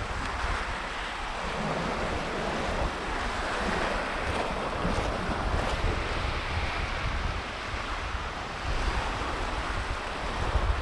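Baltic Sea surf washing on the shore as a steady hiss, with wind buffeting the microphone in uneven low rumbles.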